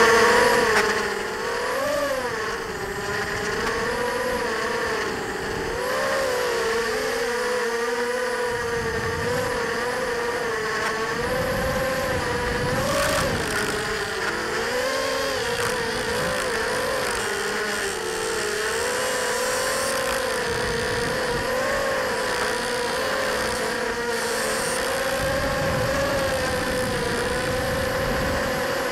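Racing quadcopter's electric motors and propellers whining, heard from the onboard camera: one buzzing pitch that keeps rising and dipping with the throttle as it flies.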